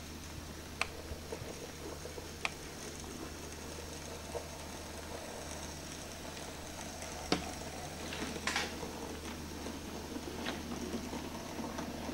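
Hornby J94 OO gauge model tank engine crawling very slowly with coal wagons: a steady low hum and faint crackly hiss, with a few sharp clicks of the small wheels over the track and a brief scrape about eight seconds in.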